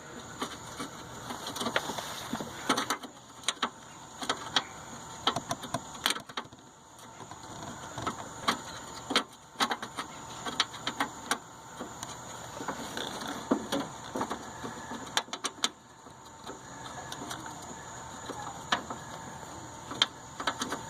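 Irregular metallic clicks, taps and light scraping as a hood latch assembly is worked by hand against its mounting on a car's front end, without it seating.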